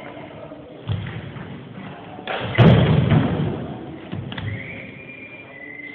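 Feet stamping and landing on a sports-hall floor during a kung fu form: a few separate thuds, the loudest about two and a half seconds in, ringing on in the hall.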